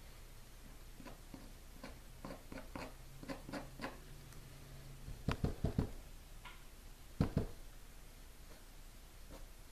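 Light taps and clicks of art tools being handled on the work table, then two short clusters of louder dull knocks about five and seven seconds in.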